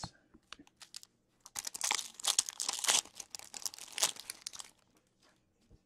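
Foil wrapper of a hockey card pack being torn open and crinkled: a dense crackling that lasts about three seconds. It comes after a few light clicks from the cards being handled.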